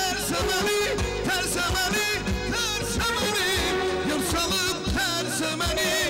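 A man singing into a microphone with a live band backing him: electric guitar, synthesizer keyboard and drums. The melody wavers and bends in ornamented turns.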